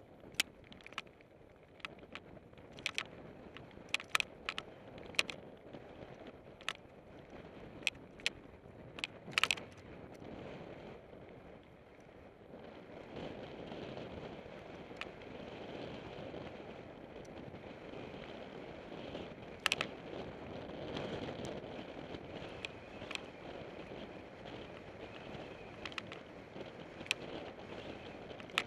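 Mountain bike rolling along a dirt singletrack trail: a steady rumble of tyres and wind, with sharp clacks and rattles as the bike goes over bumps. The clacks come thick in the first ten seconds, and the rumble grows louder about halfway through.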